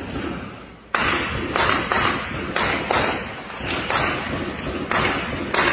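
Gunfire: about nine shots, irregularly spaced, each with a long echoing tail, fired during a cartel gunfight.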